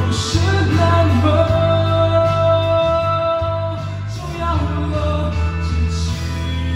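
A Chinese-language song: singing over guitar with a steady bass line, with long held notes.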